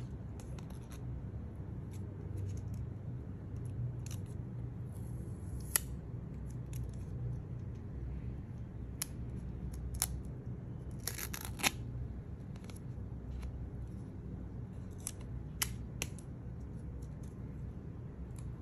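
Protective plastic film being handled and peeled off an Apple Watch Ultra: scattered small sharp clicks and crinkles, with a longer crackling rustle about eleven seconds in.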